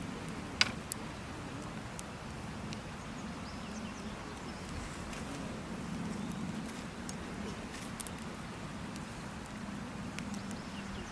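Wood fire crackling, with one sharp pop about half a second in and a few lighter pops later, over a steady low hum.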